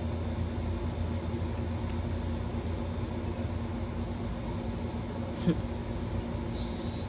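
Steady low outdoor hum with an even background hiss. A brief sharp sound comes about five and a half seconds in, and a few faint high chirps come near the end.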